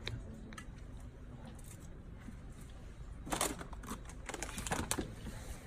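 Packaged goods being taken off wire fridge shelves by hand: drink cans and juice cartons knocking lightly, and a crinkly snack bag rustling. A few soft clicks at first, then a burst of rustling and clatter about three seconds in.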